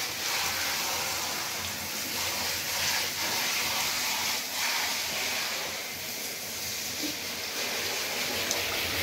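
Handheld shower spraying water over a wet Labrador's lathered coat in a bathtub, rinsing out the shampoo: a steady hiss of running water.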